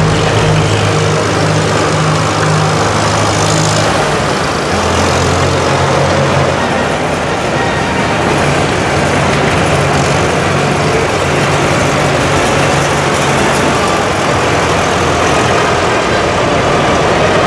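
Farm tractor engines running at low speed as tractors drive slowly past one after another, a loud steady low drone whose pitch shifts about four seconds in.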